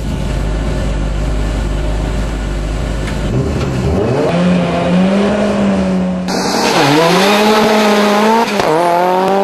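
Four-wheel-drive Mitsubishi Colt Evo rally car's engine, heard from inside the cabin: a steady low rumble, then the engine note rising and holding as the car pulls away. About six seconds in the sound switches to trackside, with the engine climbing in pitch, briefly dropping at a gear change and climbing again, over tyre squeal.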